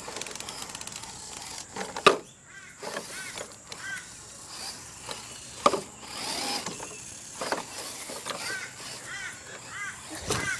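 4x4 RC rock crawler whirring and grinding as it crawls over rough garden ground and roots, with two sharp knocks, about two seconds and five and a half seconds in, as it bumps over obstacles.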